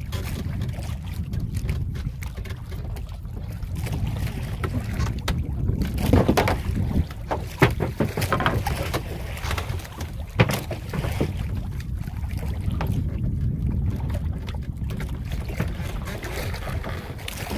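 Small outrigger fishing boat under way while trolling: a steady low engine rumble with wind and water noise. A few sharp knocks come between about six and ten seconds in.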